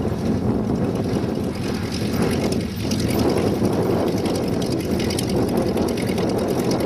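The 230-horsepower piston engine and propeller of a ring-wing light aircraft running steadily at low power as it taxis on grass.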